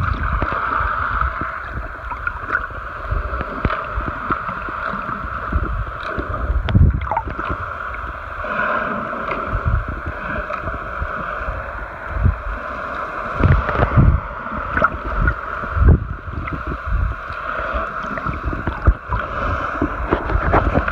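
Muffled water noise from a camera held just under the surface by a snorkeler: a steady rushing hiss with irregular low thumps and splashy knocks as the water and the swimmer's movements hit the housing.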